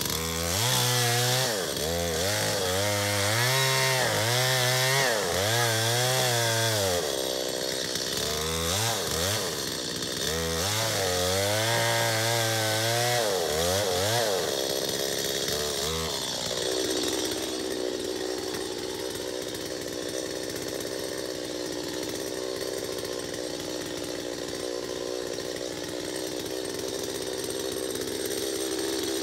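Stihl MS 250 two-stroke chainsaw making a felling cut into the trunk of a standing white elm. For about the first half its engine pitch repeatedly dips and rises as the chain bogs in the wood and picks back up. After that it runs steadily, with no more rise and fall.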